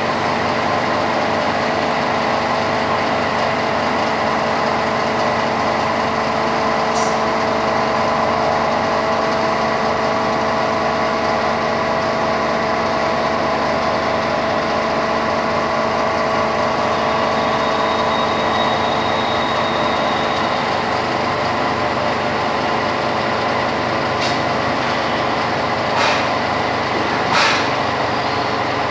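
Steady machine drone with several fixed hum tones, the sound of a hydraulic press's power unit (electric motor and pump) running. A few short clicks and knocks break through, two louder ones near the end.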